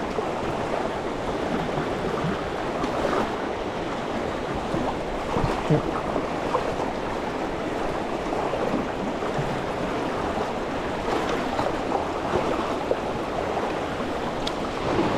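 Creek water running and burbling over rocks in a steady wash, with small splashy sparkles throughout.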